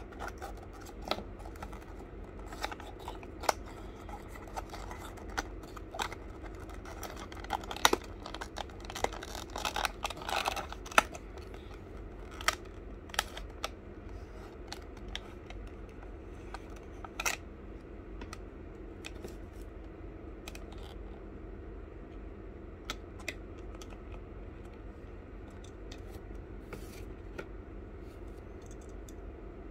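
Scattered clicks, scrapes and rustles of a small cardboard model-car box being pried open with a small screwdriver and its clear plastic blister tray slid out. The handling is busiest about a third of the way in, then thins to occasional light clicks, over a steady low hum.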